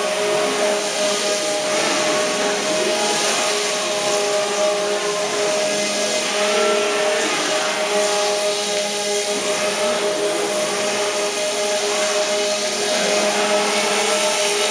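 Small model hovercraft's electric motors and propellers running with a steady whine as it travels across a carpeted floor, with some wavering rises and falls in pitch.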